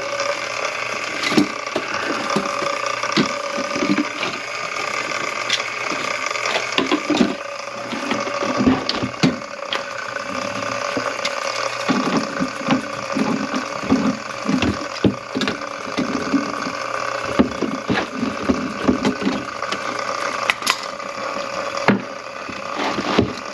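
Water running into a kitchen sink drain over a steady mechanical hum, with irregular knocks and clicks throughout.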